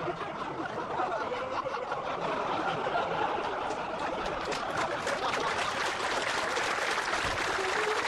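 Studio audience applauding, a dense crackling clapping that builds up and holds steady.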